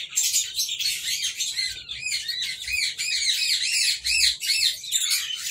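Several caged lovebirds chirping in a dense, continuous chatter of short, shrill notes.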